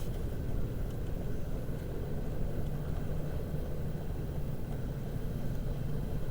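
A car creeping along slowly, its engine and tyre rumble heard from inside the cabin as a steady low rumble.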